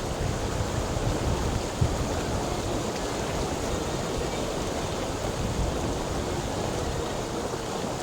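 Flowing water rushing steadily, with a heavy low rumble.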